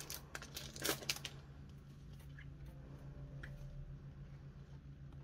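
Thin clear plastic sleeve crinkling and rustling as a small card pack is slid out of it by hand, in a few short crackles mostly in the first second and a half, then a couple of faint ticks of handling over a faint steady hum.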